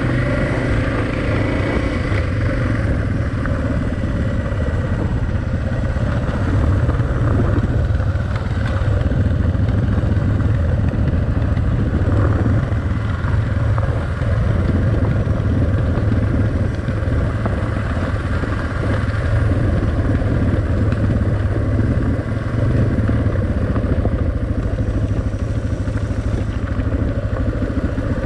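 Suzuki DR650's single-cylinder four-stroke engine running steadily while the motorcycle is ridden along.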